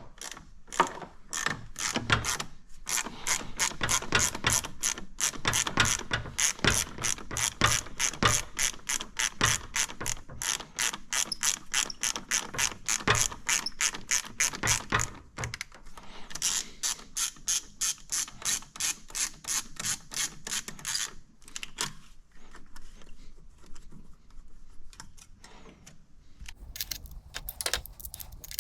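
Ratchet wrench clicking in a fast, even run as a bolt is turned, thinning to scattered clicks about three quarters of the way through.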